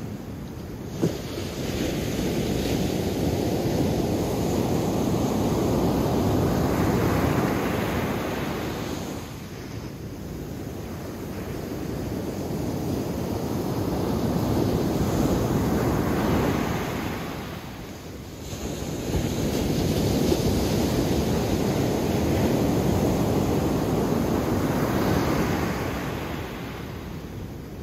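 Ocean surf breaking and washing up a sandy beach, swelling and ebbing in three long surges about nine seconds apart. A brief click comes about a second in.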